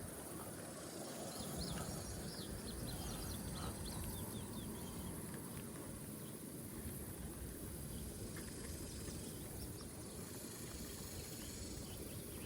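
Outdoor riverside ambience: a steady low rumble, with faint, quick high chirps clustered about two to four seconds in and a few scattered later.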